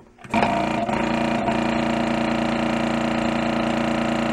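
Built-in vacuum pump of a Hakko 470 desoldering station, running with a steady hum and cutting in about a third of a second in. It runs because a paper-clip jumper is shorting the trigger contacts in the gun socket, standing in for a pulled trigger.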